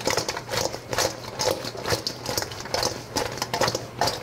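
Sauced fried chicken wings tossed in a stainless steel mixing bowl, knocking and slapping wetly against the metal about twice a second.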